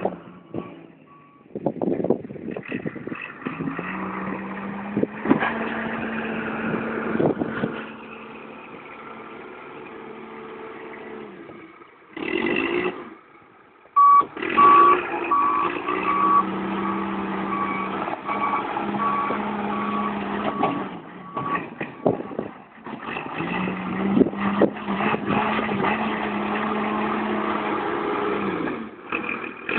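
Heavy truck engine running and working, its pitch holding and then changing in stretches, with a reversing alarm beeping steadily in the second half.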